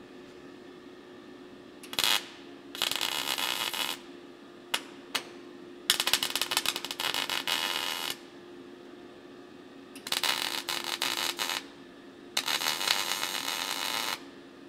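MIG welder laying short weld runs on the steel gutter join of a 1970 Holden HG ute roof. The arc crackles in a brief strike and then four runs of one to two seconds each with pauses between, over a steady hum. The passes are kept short so the corner of the roof doesn't get too hot.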